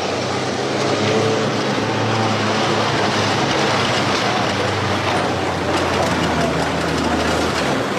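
Pickup truck's engine running steadily as it drives past close by, with road and tyre noise; the low engine hum drops away near the end.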